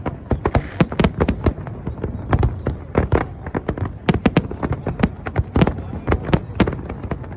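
Fireworks display going off in a dense, uneven barrage of sharp bangs, several a second.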